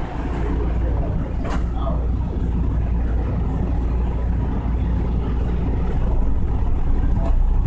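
Steady low rumble of a SEPTA Market-Frankford Line subway car heard from inside the car as the train pulls away from the station after the doors close, growing slightly louder near the end.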